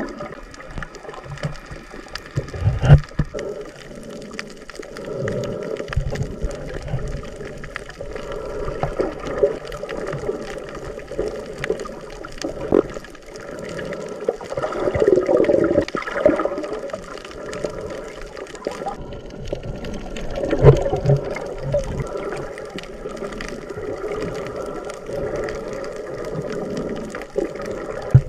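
Muffled water sloshing and bubbling around a camera in the sea, with many small clicks and two loud knocks, about 3 seconds and 20 seconds in.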